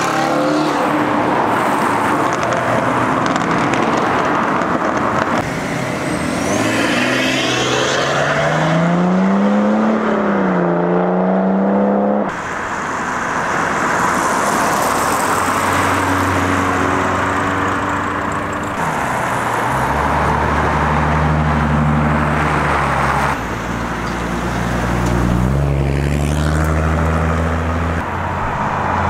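Cars driving off one after another, in short clips cut together: engines revving up and down in the first half, then a deep, steady engine rumble in the second half, with a rising rev near the end.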